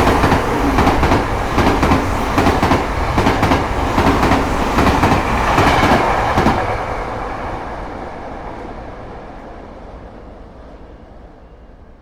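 A train passing, its wheels clattering over the rail joints with a heavy rumble. After about six and a half seconds it fades steadily away. Faint repeating alarm tones are heard near the end.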